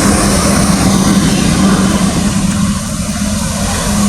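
Airliner's engines running: a loud, steady drone with a constant low hum, easing a little about three seconds in.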